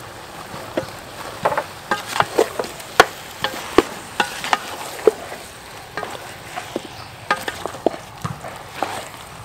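Spatula mixing raw cow-leg pieces with chili powder in a large metal pot: irregular clinks and scrapes of the spatula against the pot and wet slaps of the meat, several a second, over a steady hiss.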